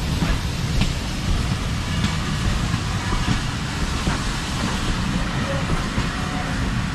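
Coaches of an arriving steam-hauled passenger train rolling past: a steady low rumble of wheels on rails, with a few clicks over the rail joints.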